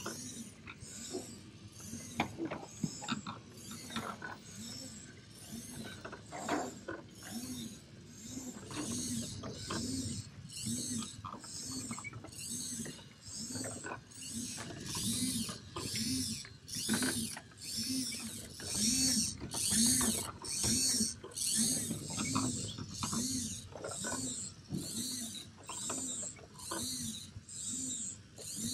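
LEGO motors and gear trains driving motorized amusement-ride models, a steady mechanical whirring and clicking whose pitch rises and falls about one and a half times a second.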